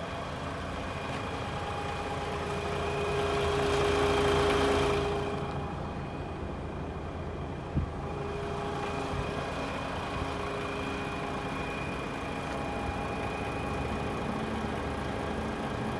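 DAF XF106's Paccar 510 hp Euro 6 diesel, an MX-13 straight-six, idling steadily. A rush of noise swells and fades about four to five seconds in, and there is a single sharp knock about halfway through.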